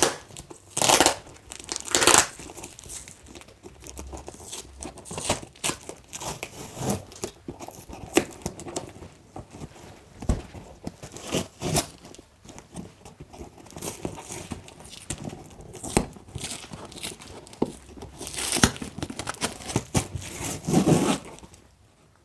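Outer shipping packaging being torn open by hand, with irregular ripping and crinkling of the wrapping, the loudest rips about one and two seconds in and again near the end.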